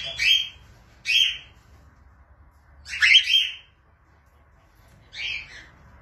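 Cockatiels calling: four short calls spaced a second or two apart, some falling in pitch, the third the loudest.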